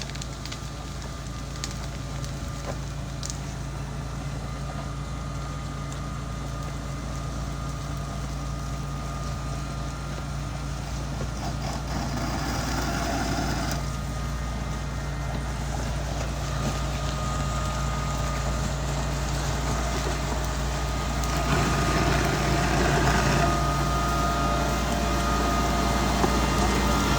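Mitsubishi MG430 motor grader's diesel engine running steadily under work, growing gradually louder as the machine comes closer, with two stretches of added rushing noise partway through.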